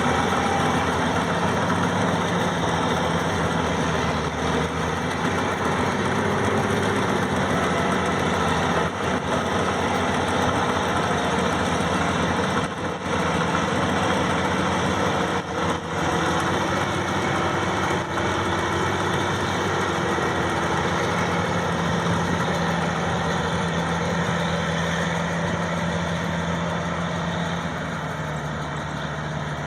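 Maxxi 85 combine harvester's engine running steadily under work, a constant drone that dips slightly in pitch near the end.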